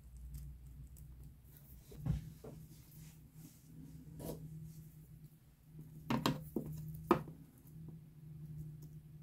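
Metal tweezers clicking and scraping while pulling loose shed skin off a bearded dragon's belly: a few short sharp clicks, about two, four, six and seven seconds in, over a faint steady hum.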